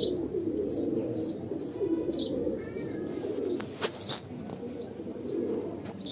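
Domestic pigeons cooing steadily in a loft, a continuous low warbling, with a few short, high chirps over it.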